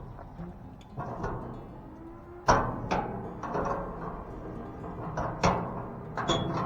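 Sharp metal knocks and clanks from steel lock parts being handled and fitted, several separate strikes with the loudest about two and a half seconds in.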